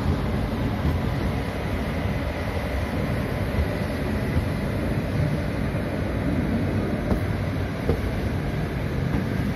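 Indian Railways express passenger coach running along the track, heard from its open side: a steady rumble of wheels on rails.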